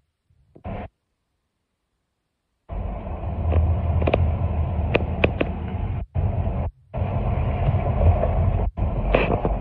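Road noise inside a moving car: a steady low rumble of tyres and engine on wet pavement, with a few sharp clicks. It starts about three seconds in after near silence and cuts out abruptly a few times.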